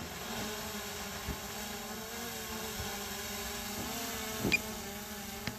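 Quadcopter drone's propellers buzzing steadily as it hovers in to land, their pitch wavering slightly. A sharp click comes about four and a half seconds in and another near the end.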